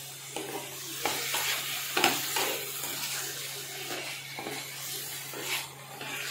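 Bone-in chicken pieces sizzling in a little hot mustard oil in a kadhai over a high gas flame, stirred and turned with a wooden spatula that scrapes the pan in irregular strokes.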